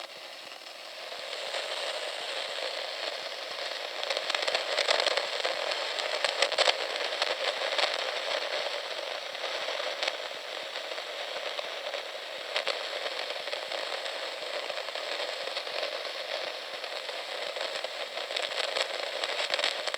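A clock giving off continuous, dense crackling full of small pops and snaps. The crackling swells about a second in and keeps going, with louder pops scattered through it.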